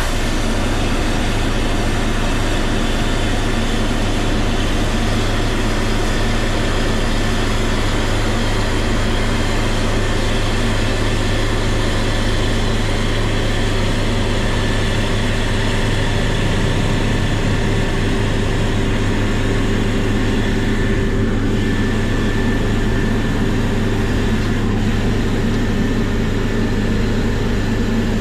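Heavy diesel earthmoving machinery running steadily, a continuous engine drone with a strong low hum.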